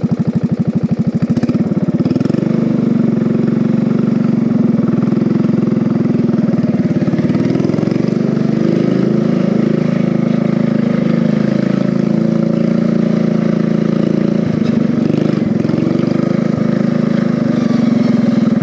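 Lawn mower engine on a home-built race mower, pulsing slowly at idle, then revving up about two seconds in and running steadily at higher speed as the mower is driven.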